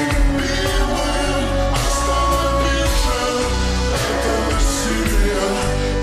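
Slowed-down, reverb-heavy pop song playing, with singing over a steady beat and sustained bass.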